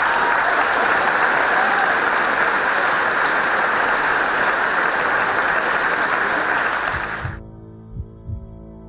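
A large audience applauding steadily. The applause cuts off suddenly about seven seconds in, and quiet ambient music with soft low thumps follows.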